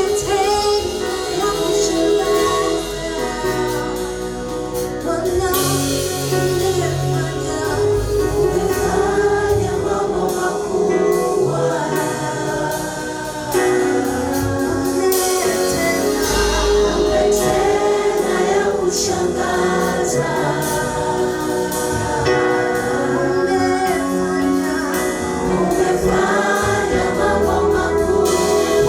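A choir sings a gospel worship song in Swahili, accompanied by a band with bass, keyboard and drums.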